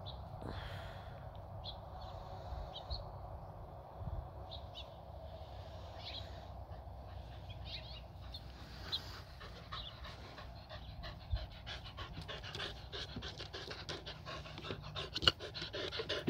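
A dog panting quickly, the panting growing closer and louder over the second half.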